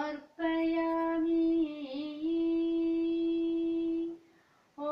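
A woman chanting a Sanskrit sloka, drawing out the closing word "samarpayami" on one long steady note with a brief dip in pitch midway. She stops for a breath shortly before the end.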